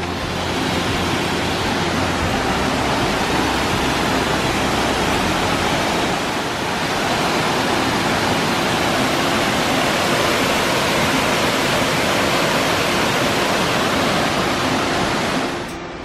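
Waterfall cascading down a steep rock face, a steady rushing of water that falls away just before the end.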